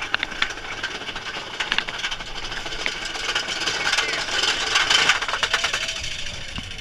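Big Thunder Mountain Railroad mine-train roller coaster running along its track, heard from aboard a car: a rattling clatter of wheels over the rails with wind rushing past the microphone, getting louder for a couple of seconds in the middle. A few short rider cries come in near the end.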